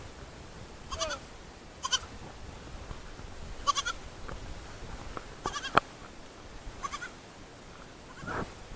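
A young goat bleating in short, high calls, about six times, a second or two apart.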